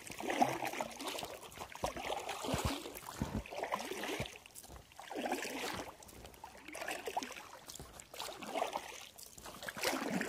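Paddle strokes in the water beside a small inflatable boat: splashing and dripping that swell and fade in a rhythm of a stroke every second or two.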